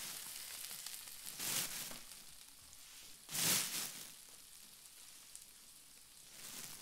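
A plastic bag rustling and crinkling in short bursts, the loudest about three and a half seconds in, over a faint steady hiss.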